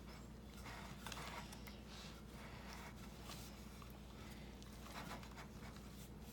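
A spoon stirring and scraping through thick, stiff muffin batter in a bowl, in faint irregular strokes. The mixing is hard work.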